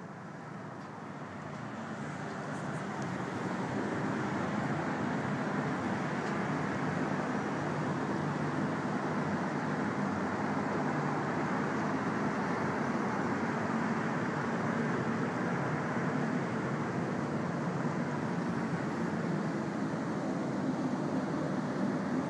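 Steady wash of distant city traffic heard from high up, swelling over the first few seconds and then holding level.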